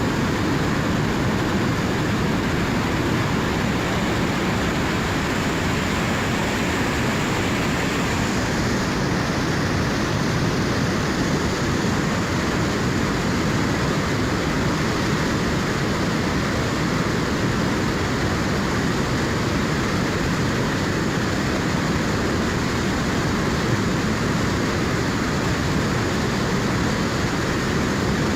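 River in high flow rushing steadily, a dense even roar of turbulent water.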